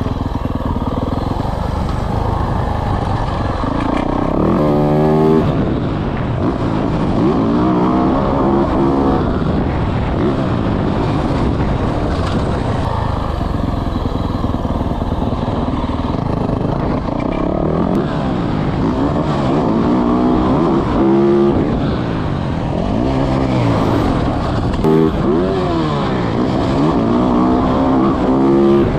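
Motocross dirt bike engine being ridden hard: the engine note repeatedly climbs as the throttle is opened and drops back as it is rolled off.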